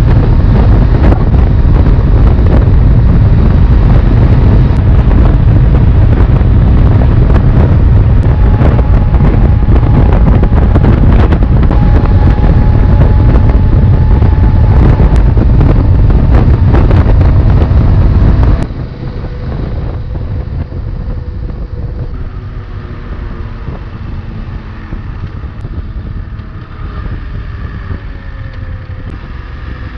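Heavy wind noise on the microphone from a BMW F 850 GS motorcycle at highway speed, around 150 km/h, masking most of the engine. About nineteen seconds in it cuts abruptly to a much quieter stretch at lower speed, where the bike's 853 cc parallel-twin engine is heard, its pitch gliding up and down.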